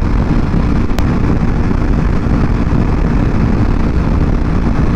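Aprilia Tuono V4 Factory motorcycle under way at a steady speed: its V4 engine runs steadily under a heavy, even rumble of wind on the microphone, with a single click about a second in.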